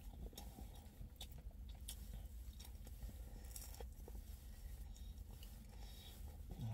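A person chewing and biting into a thick slice of pizza, quiet wet mouth sounds with scattered small clicks and crunches of crust, over a low steady hum.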